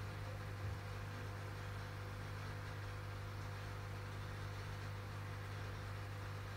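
Steady low electrical hum under a background hiss, with a faint brief knock under a second in.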